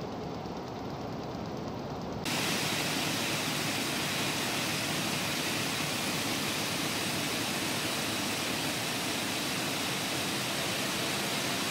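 Textile machinery running, a steady dense hiss-like noise with no clear beat. About two seconds in it cuts abruptly to a louder, brighter steady hiss.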